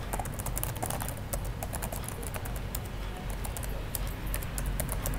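Computer keyboard being typed on, keys clicking in quick, irregular succession.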